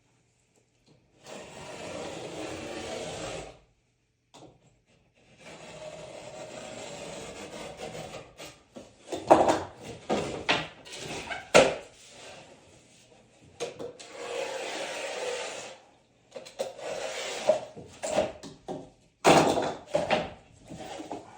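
Work on wood: several stretches of steady scraping or sawing, each two to three seconds long and stopping abruptly, with clusters of sharp knocks between them.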